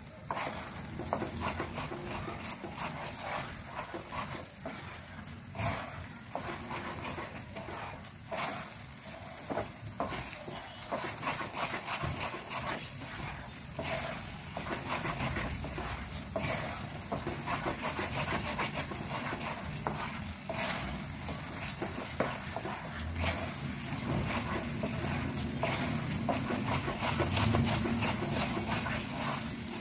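Wooden spatula stirring and scraping thick khoa (mava) around a nonstick pan as it roasts, in a steady rhythm of strokes with an occasional sharper knock.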